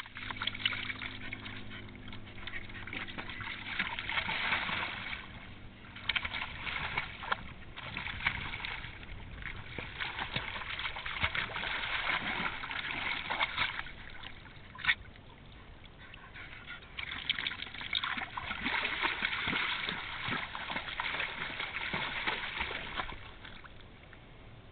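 Dog splashing and paddling through shallow water, the water sloshing and splattering in irregular spells with a quieter stretch past the middle. There is a single sharp knock a little past halfway.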